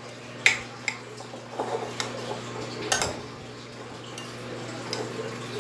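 Metal spoon stirring a chopped vegetable stuffing in a glass bowl, with soft scraping and a few sharp clinks of the spoon against the glass.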